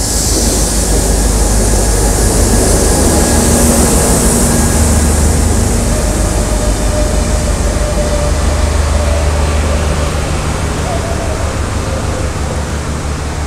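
Nepal Railway diesel multiple unit standing at the platform with its diesel engine running: a loud, steady low rumble with a few steady hums above it. A hiss is heard over the first several seconds and fades out.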